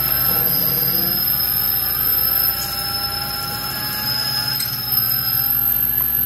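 King Canada KC20VS bench mill drilling holes through a metal plate, running steadily with a motor hum and a high, constant whine. One of the high tones cuts out about two and a half seconds in and comes back near the end.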